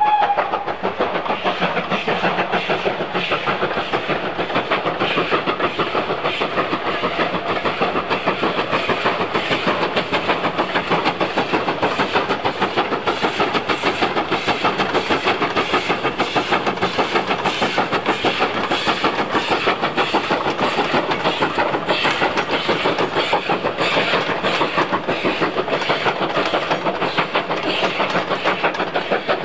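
Steam locomotive working hard under load, its exhaust beating in a rapid, steady rhythm of chuffs.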